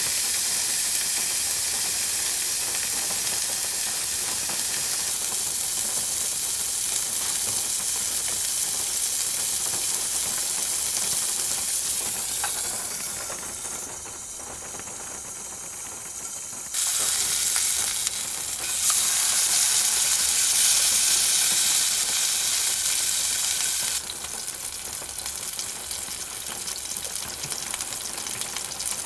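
Beef burger patty sizzling in a small nonstick frying pan over a canister gas stove, a steady high hiss. The sizzle drops and rises abruptly several times, quieter for a few seconds in the middle and again near the end.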